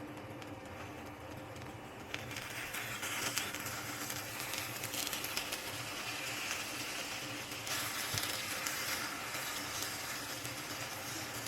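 Food sizzling and crackling in hot oil in a frying pan. The sizzle starts about two seconds in and grows louder around eight seconds.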